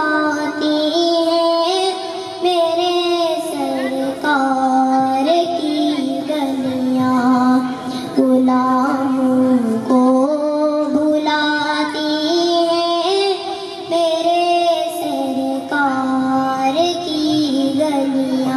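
A boy singing a naat solo into a microphone, one unaccompanied voice holding long notes and sliding slowly between pitches.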